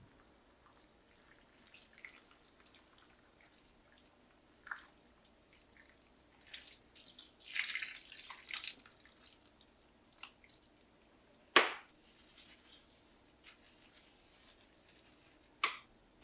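Liquid poured from a plastic measuring cup into a ceramic baking dish of shredded cheese: soft trickling and splashing, heaviest about eight seconds in, among scattered light drips and clicks. A sharp knock about twelve seconds in is the loudest sound, and a second one comes near the end.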